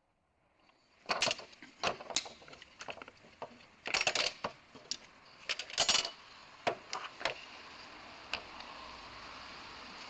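Sharp, irregular metallic clicks and clinks of small lock parts and tools being handled, about a dozen in quick groups, with a low steady hiss underneath in the second half.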